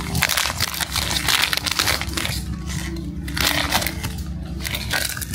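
Foil blind-box bag crinkling and rustling in the hands as it is torn open and the figure inside is pulled out: a dense, irregular crackle.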